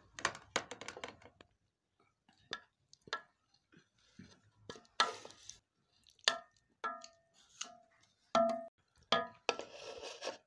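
Serving spoon scraping and knocking against a cooking pot and a plate as cooked keema is dished out: scattered clinks and scrapes, some knocks ringing briefly.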